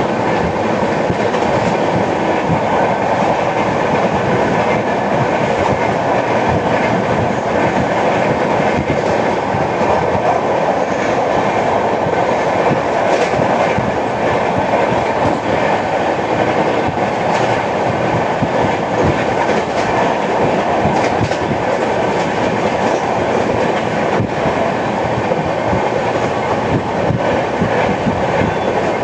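Passenger train coach running at speed: a steady rumble and rattle with repeated wheel clicks and knocks on the rails. The uploader takes the knocking for the beat of a flat wheel.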